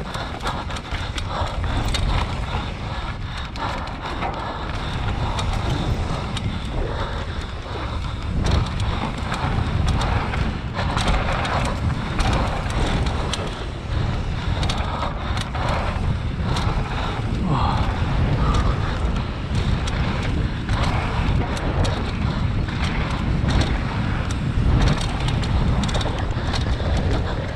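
Mountain bike descending a rough enduro trail at speed: wind rushing over the helmet camera's microphone, tyres running over dirt and rock, and frequent knocks and rattles from the bike throughout.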